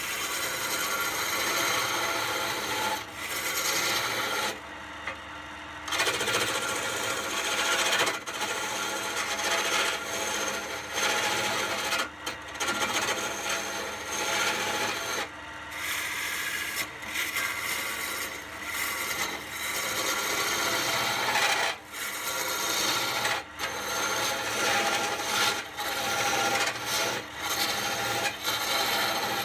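Woodturning on a lathe: a tool working the spinning wood with a steady scraping hiss, broken by a few short pauses and a quieter stretch about five seconds in.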